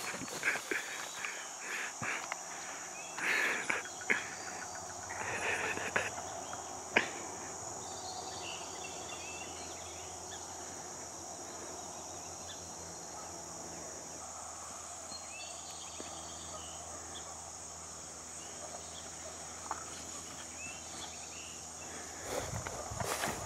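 Steady, high-pitched chorus of insects singing, with a few knocks and rustles in the first several seconds and footsteps through grass near the end.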